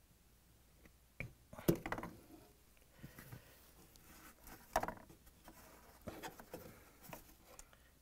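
Faint clicks and scrapes of a plastic fan blade being worked off a refrigerator condenser fan motor's shaft by hand, with a sharper click a little under two seconds in and another near five seconds.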